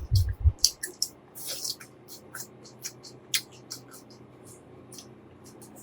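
Close-up eating sounds: a person chewing shrimp, with many short wet mouth clicks and smacks. They come thickest in the first couple of seconds and thin out towards the end.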